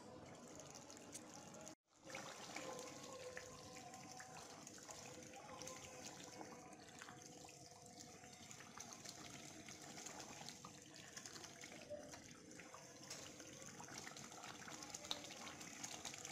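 Chicken curry bubbling faintly in an open pan on high heat as its gravy thickens, with light scrapes and taps of a spatula stirring it.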